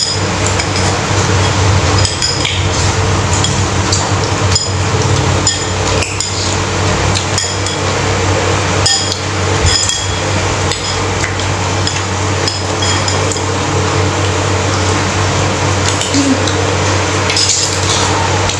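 Metal fork and spoon clinking against a ceramic bowl of instant noodle soup in frequent small taps, with noodle slurping, over a steady low hum.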